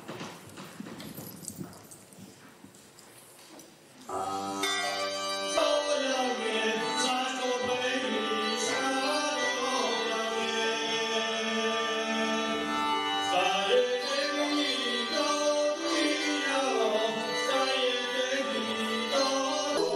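Traditional Serbian folk music begins suddenly about four seconds in, after a few seconds of low hall noise: a sustained, ornamented melody over steady drone-like tones, continuous and without pauses.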